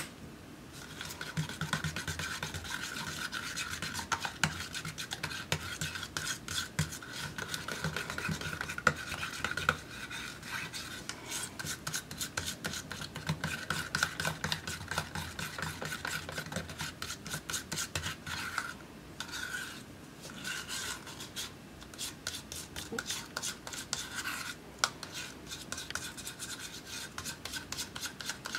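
A metal knife stirring and scraping thick paint around a small plastic cup: rapid, continuous scraping strokes, easing off briefly about 10 and 19 seconds in.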